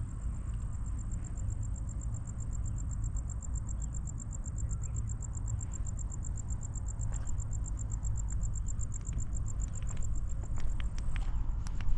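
A cricket chirping: a steady, fast train of high, evenly spaced pulses that stops near the end.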